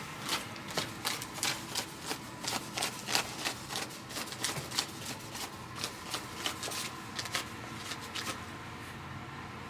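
Footsteps walking at a steady pace, about three a second, over a low background hum of a large hall, fading out about eight seconds in.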